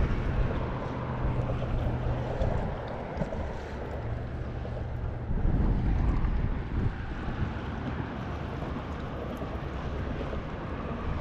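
A boat motor hums, stopping and starting twice, with wind buffeting the microphone and a steady rush of wind and water throughout.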